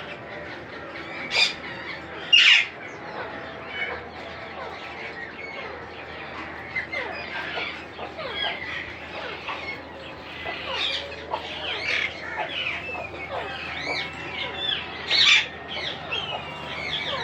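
Monk parakeets chattering with many short chirps, broken by loud harsh squawks about a second and a half in, again just after, and once more near the end.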